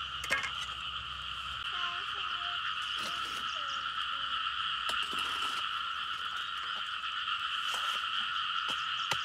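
A continuous chorus of calling animals, a steady shrill drone with no break, with a few faint clicks.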